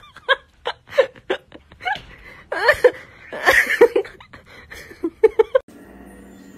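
A cat making rapid, choppy chirping calls in short bursts, mixed with a person's breathy laughter in the middle; near the end it cuts off suddenly and soft music takes over.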